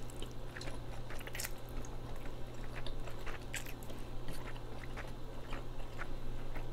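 Close-miked eating of thick, spicy instant noodles: chewing and slurping, with many short, wet mouth clicks over a low steady hum.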